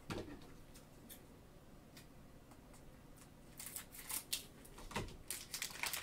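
Plastic cello wrapper of a trading-card pack crinkling as it is handled and opened, in short crackly bursts from about three and a half seconds in; a soft thump at the start.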